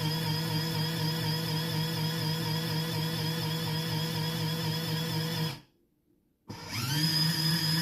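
Mini portable washing machine's small electric motor running with a steady hum. About five and a half seconds in it cuts out for about a second, then starts again with a brief rising whine as it spins back up.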